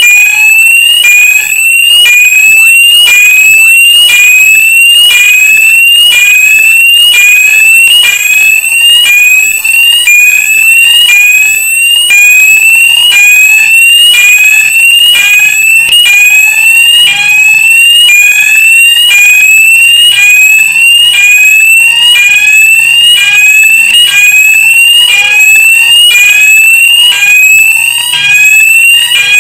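Fire alarm sounder going off: a loud, high rising sweep tone repeating about once a second.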